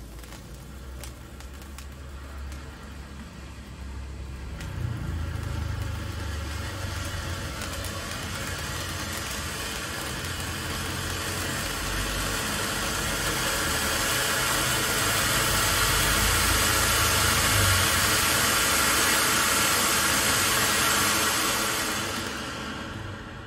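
Silver jumbo ground-fountain firework burning with a steady rushing hiss of sparks. It grows louder a few seconds in, keeps swelling toward its loudest as the spray rises, then fades near the end as the fountain burns out.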